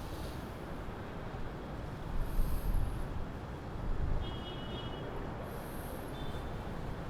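Urban street background noise: steady traffic with a low rumble swelling as vehicles pass, louder about two seconds in and again about four seconds in.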